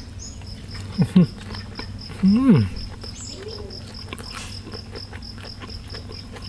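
A cricket chirping steadily in an even, fast pulse, under a man chewing a mouthful of food. Twice, about one and two and a half seconds in, he gives a short hum whose pitch rises and falls, the loudest sounds here.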